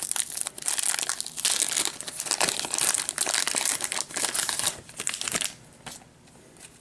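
Clear plastic wrapper crinkling and crackling as it is pulled open by hand around a pair of baseball card packs. The crinkling stops about five and a half seconds in, leaving only a few faint rustles.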